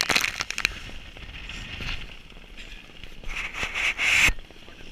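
Spray and water splashing over the deck of a sailboat heeled under sail, coming in bursts: one at the start, a smaller one about two seconds in, and a long loud one that cuts off suddenly near the end.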